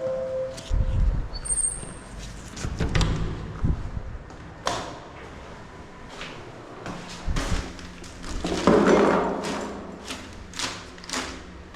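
A series of irregular knocks, thumps and clicks, with a louder rushing noise about nine seconds in.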